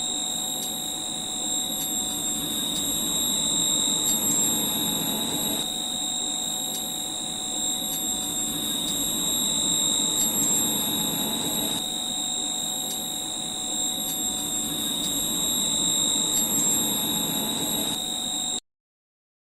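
Ozone generator panel running after its 12 V SMPS repair: a steady high-pitched whine over a low hiss, with faint ticks about once a second. It cuts off suddenly near the end.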